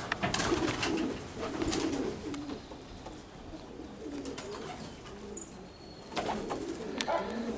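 Domestic diving pigeons cooing, several overlapping low coos, with a few sharp clicks near the start and again near the end.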